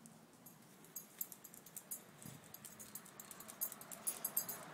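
A dog walking on a brick path: faint, quick, irregular light clicks and jingles that grow busier toward the end, with one soft thump a little after two seconds.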